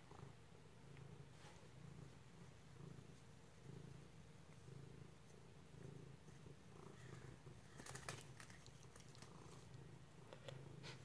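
Domestic cat purring faintly, in soft, even swells. A few soft clicks about eight seconds in.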